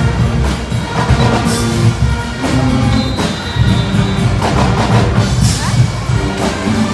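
Guggenmusik band playing in the street: loud brass chords over a pounding marching beat on bass drums and snare drums.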